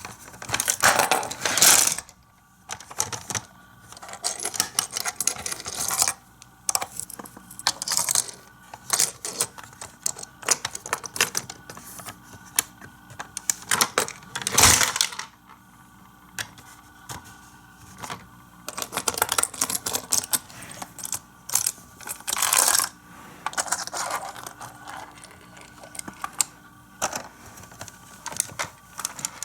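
Micro Machines plastic playset and tiny toy cars clicking and clattering as they are handled, in irregular runs of small rapid clicks and rattles. One louder knock comes about halfway through.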